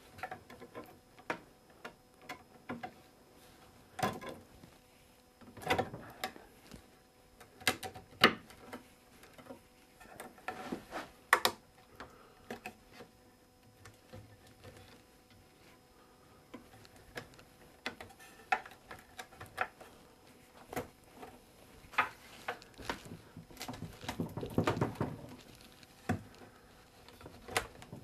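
Wooden chair back parts, the bow and spindles, knocking and clicking against each other as they are worked by hand into glued mortises: irregular light knocks and taps, with a denser run of knocks near the end.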